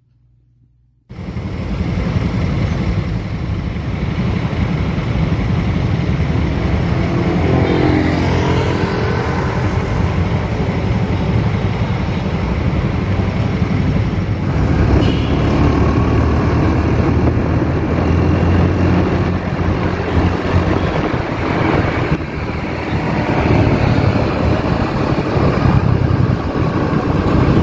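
Steady road and vehicle noise recorded while travelling along a city street. It starts suddenly about a second in, heavy in low rumble, with a rising engine note around eight seconds in.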